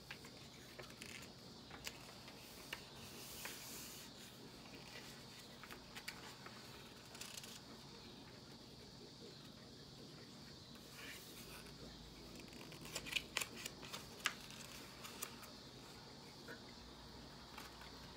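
Quiet paper rustles and small clicks as the pages of a small hardcover book are turned and handled, over a faint steady hiss, with a quick run of sharper clicks about thirteen seconds in.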